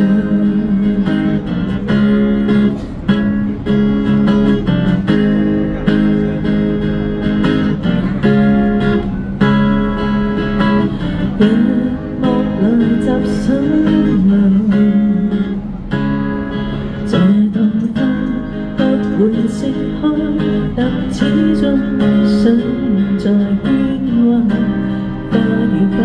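Amplified acoustic guitar played in an instrumental passage, strummed and picked over a held low note, with a voice gliding along wordlessly at times.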